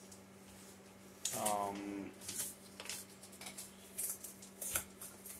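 Light clicks and rustles of rigid plastic top loaders and comic sleeves being handled. A short hummed or murmured voice sound comes about a second and a half in, over a steady low hum.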